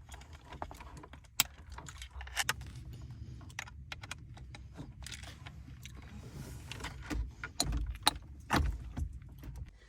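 Scattered clicks and small rattles of plastic wiring-harness connectors and cables being handled and plugged together behind a car's dashboard, over a low steady rumble.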